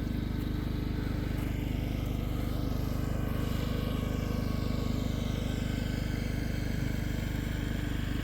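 An engine running steadily at constant speed, an even low hum that does not change.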